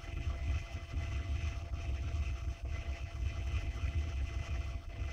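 A steady low rumble with no clear pitch, with a few faint ticks about two, two and a half, and five seconds in.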